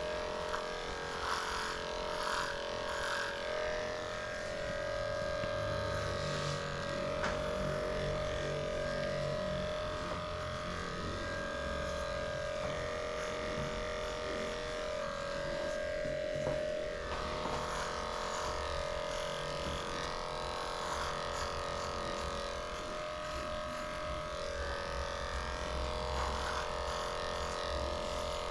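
Electric dog grooming clippers running steadily, shaving through a matted coat; the motor hum wavers slightly as the blade works through the fur.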